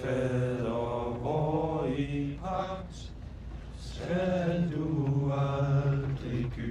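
A low male voice singing slowly in long held notes, chant-like, in two phrases with a short break in the middle.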